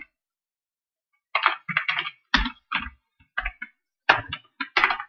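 Computer keyboard typing: about a dozen keystrokes in short, irregular clusters, starting about a second and a half in.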